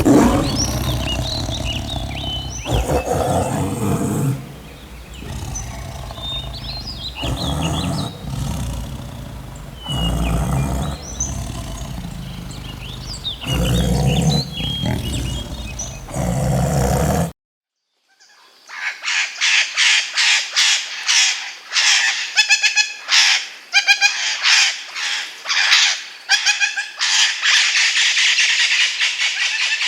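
Birds chirping over a low rumble and other animal sounds; after a second of silence, a fast run of repeated bird calls.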